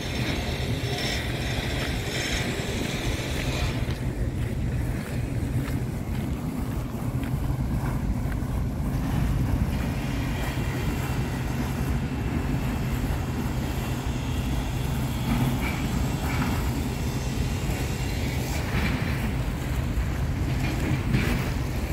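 Steady low rumble of wind buffeting the microphone outdoors, with a lighter hiss above it that is stronger for the first few seconds.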